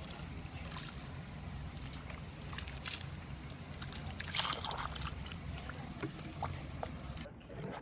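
Thick white liquid poured in a stream into a cardboard box, with a steady trickling, sloshing pour and small splashes as it pools.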